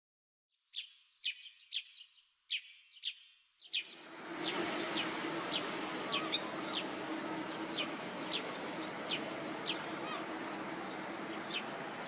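Masked lapwing (spur-winged plover) giving sharp, short calls that fall in pitch, repeated about twice a second. From about four seconds in they sit over a steady outdoor hiss.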